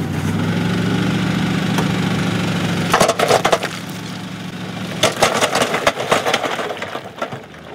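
Dump truck's engine running steadily as the tipper bed rises, then about three seconds in the load of rocks starts sliding out and clattering down, with a second heavier spell of crashing rocks about two seconds later.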